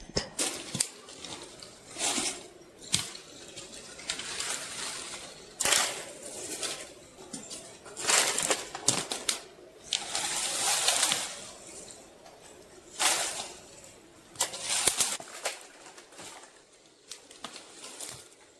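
Irregular bursts of rustling and scuffing, each about half a second to a second and a half long, with a few short clicks between them.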